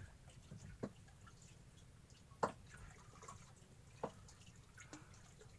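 Three sharp water drips, evenly spaced about a second and a half apart, over a quiet low background.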